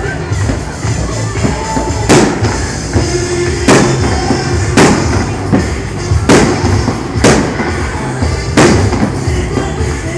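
Aerial fireworks shells bursting: about seven sharp bangs a second or so apart, over steady background music.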